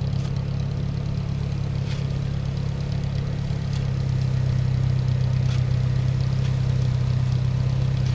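Off-road vehicle engine running steadily, a low drone that gets a little louder and steadier about four seconds in.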